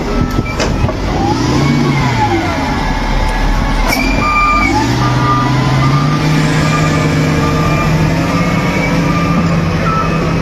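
Front loader's diesel engine revving as it scoops and lifts snow. The pitch rises and falls about a second in, then climbs again around the middle and holds at high revs, with a thin steady whine above it.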